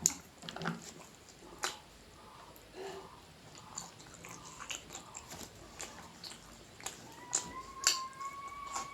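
Close-up mouth sounds of eating: chewing with wet lip smacks and sharp clicks scattered throughout. About seven seconds in, a thin high tone starts and slowly rises in pitch.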